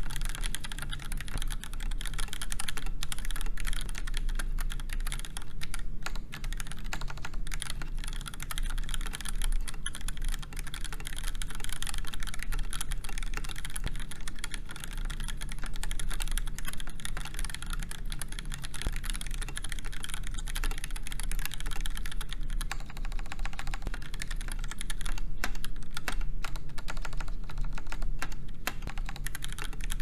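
Continuous fast typing on a KBD8X MKII mechanical keyboard in a full polycarbonate case, with brass plate, Gateron Yellow linear switches and GMK keycaps: a dense, unbroken run of keystroke clacks. The polycarbonate case gives a lower-pitched, hollow sound.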